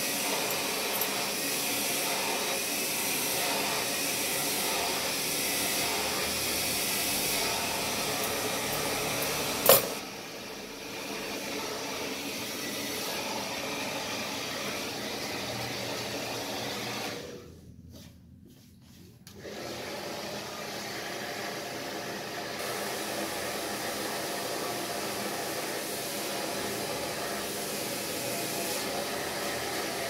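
Hand-held hair dryer blowing steadily, with a sharp click about ten seconds in after which it runs quieter. It drops out for about two seconds past the middle, then blows steadily again.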